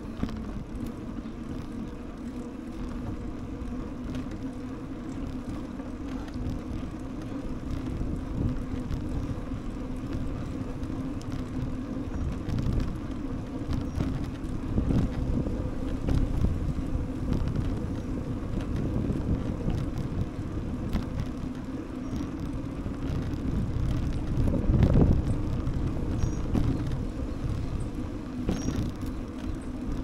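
Riding a bicycle on city streets: tyres rumbling on the pavement with many small clicks and rattles from the bike, wind on the microphone and a steady low hum underneath, louder for a moment about 25 seconds in. A few short bird chirps near the end.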